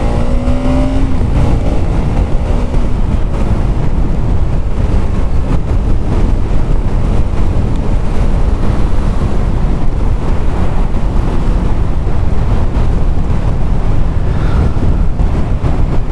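Steady wind rush buffeting the microphone of a moving Bajaj Pulsar NS200 motorcycle, with the bike's single-cylinder engine running under it.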